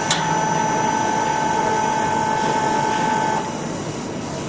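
Self-contained electrohydraulic actuator whining steadily as its hydraulics drive the globe valve closed to its 50% set point; the whine stops about three and a half seconds in, when the valve reaches position. A short click just after the start, over a steady hiss.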